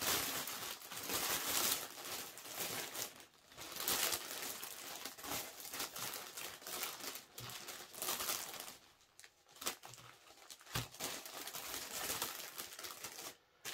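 Packaging crinkling and rustling in irregular bursts as it is handled during an unboxing, with brief pauses about nine seconds in and near the end.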